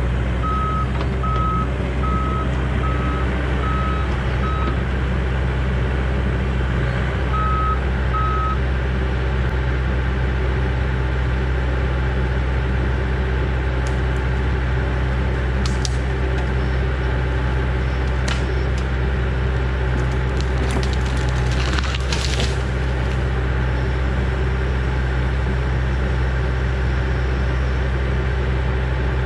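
Excavator's diesel engine running steadily under load, with a repeated high warning beep for the first few seconds and twice more around seven seconds in. From about fourteen seconds in come sharp cracks and snaps of pine trees breaking as they are pushed over, thickest around twenty-two seconds.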